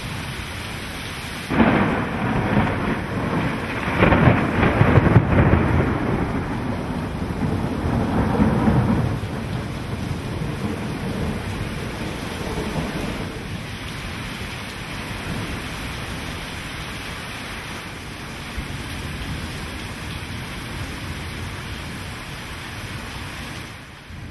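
Heavy rain and thunder in a severe thunderstorm. A sudden crack about a second and a half in, rumbling that swells again around four and eight seconds, then a steady downpour.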